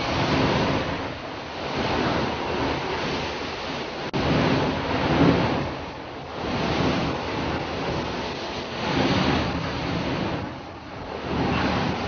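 Rough storm sea: big waves breaking and rushing, with wind. The wash swells and eases every two to three seconds.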